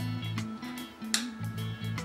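Background music with a bass line and a steady beat.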